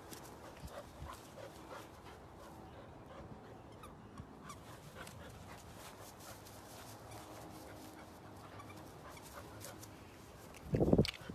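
Samoyed whimpering softly, with one short loud sound near the end.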